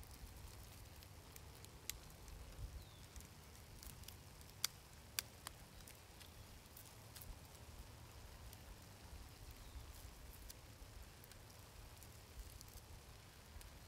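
Faint crackling of a small wood cooking fire, scattered sharp pops over a low steady rumble, with two louder pops about five seconds in.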